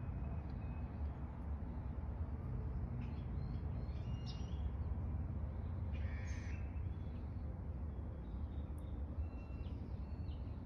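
Outdoor background with a steady low rumble, and a few short bird calls about three, four, six and ten seconds in.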